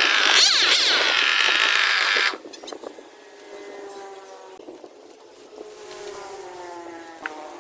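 Newborn kittens mewing loudly and repeatedly, each cry rising and falling in pitch, for about the first two seconds. The cries cut off abruptly, leaving a faint engine hum whose pitch slowly falls.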